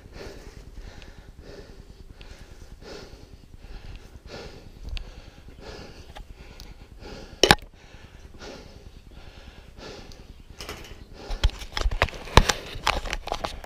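A person breathing hard through the nose in regular puffs while walking. A sharp click comes about halfway, and a run of knocks and rattles near the end.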